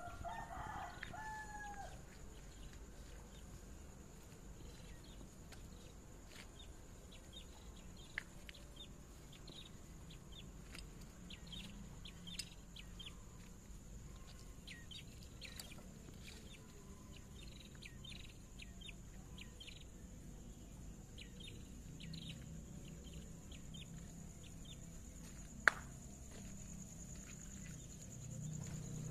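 A rooster crows briefly in the first two seconds, then small songbirds chirp in short, scattered calls throughout, over a steady high-pitched tone. There is one sharp click about three-quarters of the way through.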